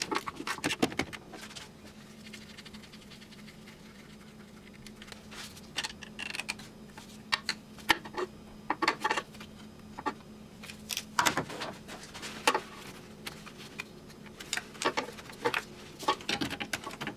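Irregular clicks, taps and clinks of hand tools on metal, some in quick little clusters, as a 13 mm fitting on a transmission cooler line is undone, over a faint steady hum.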